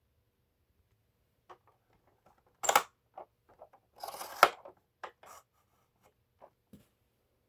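A string of irregular clicks, scrapes and rubbing sounds as something is handled, the loudest two a bit under three seconds in and about four seconds in. There is no motor sound; the vacuum cleaner is not running.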